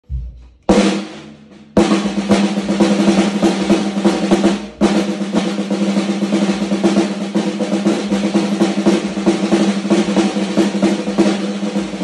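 Mapex Atomizer snare drum with a Remo Powerstroke 77 Colortone smoke batter head, played with sticks. After a low thump at the very start, there is a single ringing hit under a second in, then fast continuous strokes and rolls from about two seconds, breaking off briefly near five seconds. The drum's ring holds a steady pitch under the strokes.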